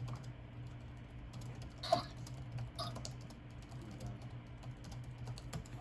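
Light, irregular computer keyboard typing clicks over a steady low hum, with two louder clicks about two and three seconds in.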